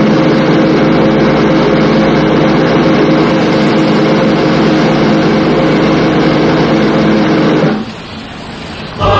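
A motor vehicle engine running steadily under a loud rushing hiss, which drops away sharply about eight seconds in; choir singing starts at the very end.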